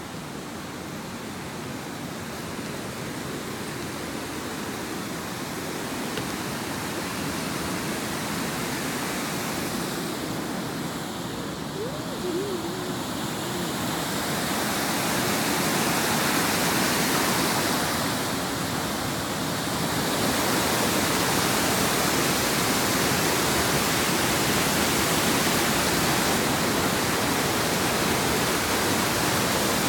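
Waterfall rushing, a steady full-range roar that grows gradually louder through the first half and then holds steady.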